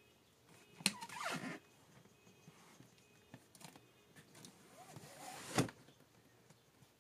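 Cardboard shipping box handled and turned over by hand, scraping and squeaking against a surface: a sharp click and a squeaky scrape about a second in, then another squeaky scrape ending in a knock a little past five seconds in.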